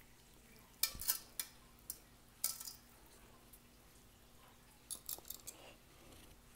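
Hands working spice paste into raw fish pieces in a stainless steel bowl, with a few sharp clinks against the steel in clusters about a second in, around two and a half seconds and around five seconds.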